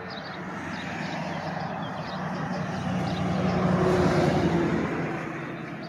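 A car driving past, its engine and tyre noise swelling to a peak about four seconds in and then fading away.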